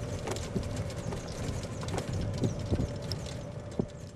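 Golf cart driving along a cart path: a steady motor whine, with irregular knocks and clinks from the golf clubs rattling in the bags on the back.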